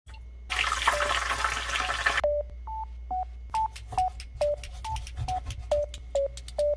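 A burst of hiss, then a run of short pitched beeps jumping among a few different notes, about two or three a second, each starting with a click.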